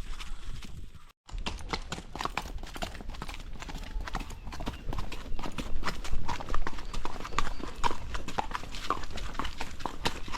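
Horse's hooves clip-clopping as it is ridden along a trail, an irregular run of hoof strikes. The sound cuts out briefly about a second in, then the hoofbeats resume.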